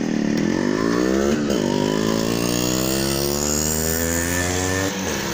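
Motorcycle engine running close by: its pitch climbs for about a second and a half, drops sharply, then sinks slowly for about three seconds and falls away near the end.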